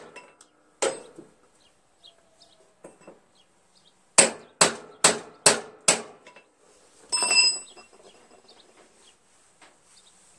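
Hammer blows on a lawn tractor's rear wheel hub, trying to knock a wheel that is seized on its axle loose: a single blow about a second in, then a run of about five quick blows a few seconds later. The wheel does not budge. A short metallic clang with a ringing tone follows just after the blows.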